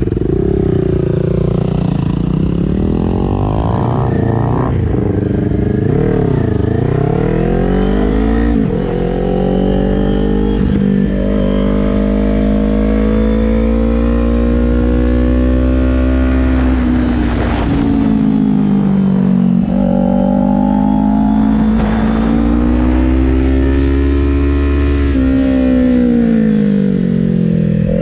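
A 2020 Kawasaki Ninja 400's parallel-twin engine, heard from on the bike, pulling away and then rising and falling in pitch over and over as the rider accelerates and eases off through tight corners.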